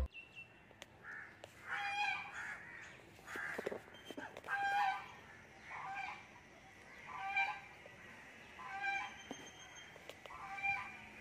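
Waterfowl calling: a series of about eight short calls, evenly spaced roughly one and a half seconds apart.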